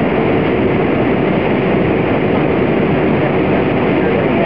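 Steady cabin roar inside an Airbus A320 in flight: its IAE V2500 turbofan engine and the air rushing past the fuselage, heard from a seat just ahead of the right engine.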